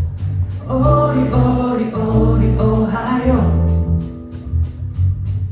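Live band music: a singing voice over guitar and strong bass, with a steady beat of cymbal ticks.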